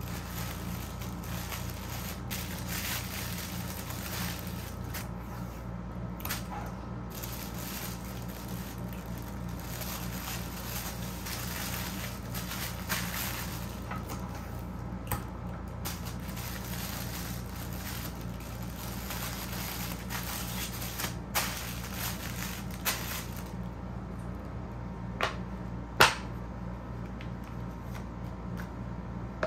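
Tissue paper rustling and crinkling as an item is wrapped by hand and taped. Near the end come a few sharp clicks from handling a clear plastic box. A steady low hum runs underneath.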